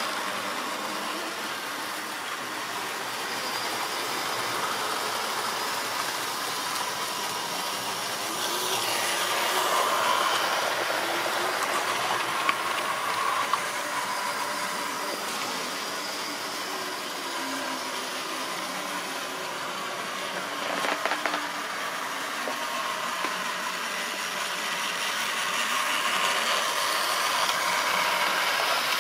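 Model railway trains running around the layout: the steady whirr of the small locomotive motors and the rattle of wheels on the track. It swells louder as a train passes close, about ten seconds in and again near the end, with a few sharp clicks near the middle.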